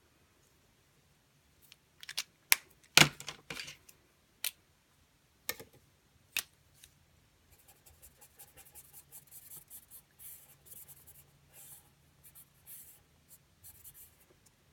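A few sharp clicks and taps from handling a liquid chrome marker, then a long stretch of its tip scratching and rubbing across synthetic yupo paper.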